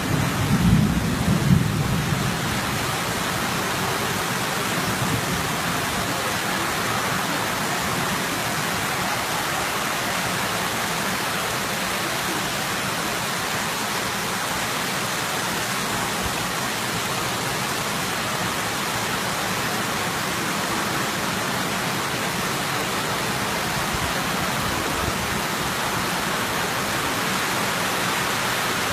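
Heavy tropical downpour: a steady, loud hiss of torrential rain pouring onto flooded ground, with a low rumble in the first couple of seconds.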